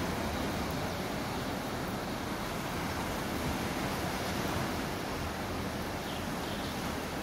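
Steady rushing noise of sea surf and wind, even throughout with no distinct events.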